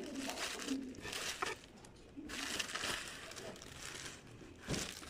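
Plastic courier mailer bag crinkling and rustling as it is handled, in uneven stretches with a few sharp crackles.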